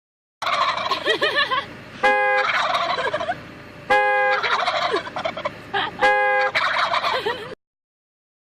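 Turkeys gobbling: a steady warbling chatter, broken by three loud, strongly pitched calls about two seconds apart. The sound starts and stops abruptly.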